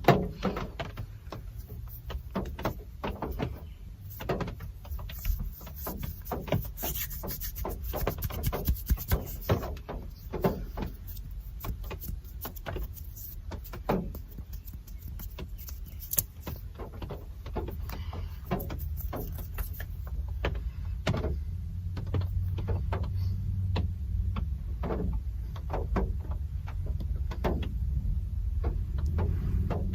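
Real rain falling: many irregular sharp drip clicks over a steady low rumble, which grows a little louder in the second half.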